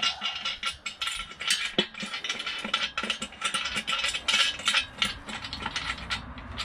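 Small steel hardware rattling and clicking against a steel frame: washers, lock washers and nuts being fitted onto the bolts of an engine hoist's base. The clicks come quickly and irregularly, then thin out about five seconds in.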